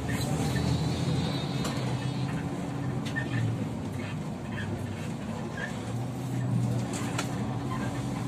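Kyiv-12.03 trolleybus under way, heard from inside the passenger cabin: a steady low hum that swells and eases a few times over road noise, with scattered small clicks and rattles.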